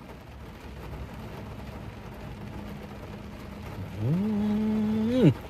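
Low, steady background hum inside a car cabin. About four seconds in, a man hums a long, appreciative "mmm" through a mouthful of melted-cheese stick; it slides up in pitch, holds, and drops off sharply.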